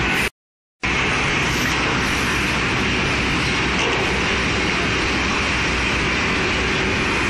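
Automatic woodworking cut-off saw line running, a loud, steady machine noise from its motors and conveyor belts. The sound cuts out completely for about half a second near the start.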